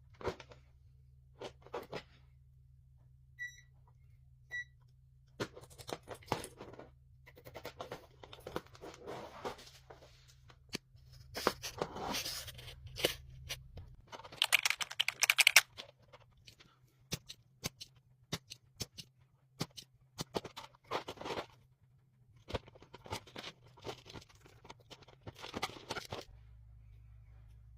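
Work noises at an electronics repair bench: irregular clicks, scrapes and rustling, with two short beeps a few seconds in, over a low steady mains hum.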